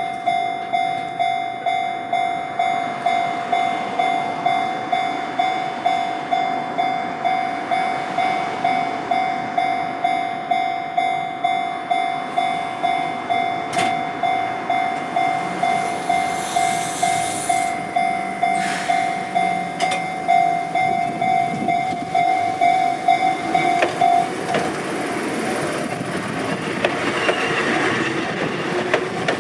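Japanese railway level-crossing alarm ringing its electronic bell about twice a second while a train passes, its wheels clacking over the rail joints. The bell stops about four-fifths of the way in while the train noise carries on.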